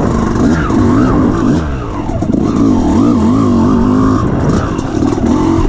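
Off-road motorcycle engine revving up and down as the throttle is opened and closed, its pitch rising and falling every half second or so.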